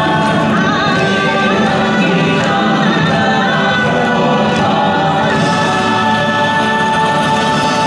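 Choir singing over music, with long held notes.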